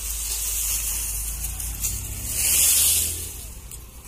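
Dry straw and stalks rustling as they are handled and pulled aside, loudest about two and a half seconds in, over a steady low rumble.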